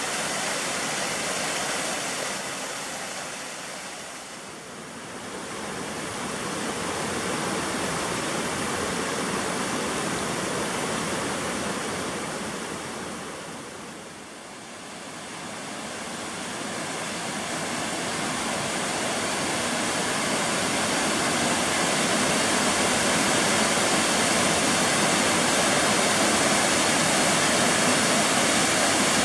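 Waterfall on a mountain creek, water rushing steadily over rock. The sound dips briefly twice, about five and fourteen seconds in, and is louder through the last part.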